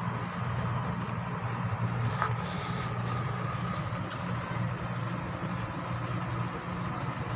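Steady low mechanical hum, like a nearby engine or machine running, with a few faint clicks over it and a short hiss a little past two seconds in.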